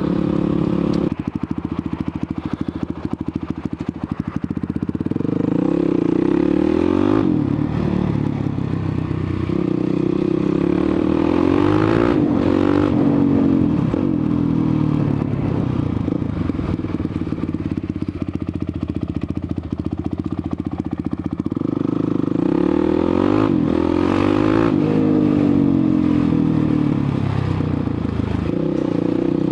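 Motorcycle engine running on the move, its note rising and falling several times as the rider opens and closes the throttle.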